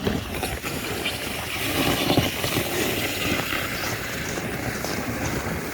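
Wind buffeting the microphone, a steady low rumbling rush.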